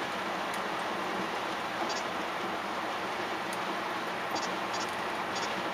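Steady road and engine noise inside a car at highway speed, with a few short, faint high beeps at uneven intervals from an Escort Max 360 radar detector alerting to Ka-band radar.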